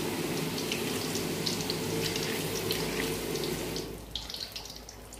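Malpua batter deep-frying in hot oil in a wok: a steady sizzle with scattered crackles and pops, which drops quieter about four seconds in.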